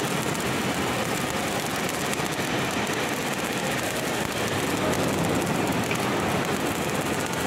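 Electric arc welding: the arc gives a steady crackling hiss as the welder runs a bead along a metal panel.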